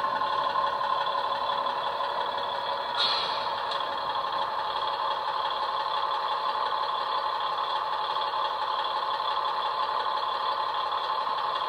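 Factory-fitted DCC sound decoder in a model Class 150 diesel multiple unit, played through an upgraded double iPhone speaker: the recorded diesel engine runs steadily, with a short hiss about three seconds in.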